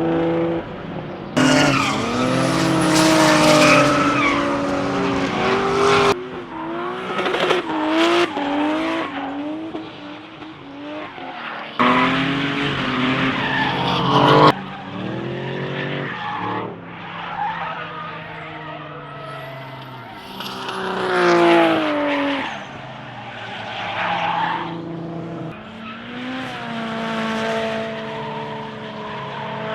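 Race car engines at high revs, pitch climbing and dropping through throttle and gear changes, with tyres squealing and skidding. The sound jumps abruptly several times between different cars.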